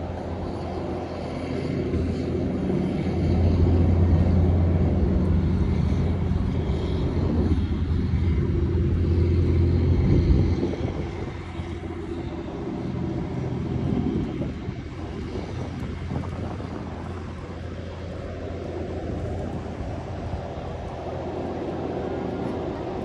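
Low engine rumble that swells, peaking about 3 to 10 seconds in and again around 14 seconds, then fades back to a steady drone.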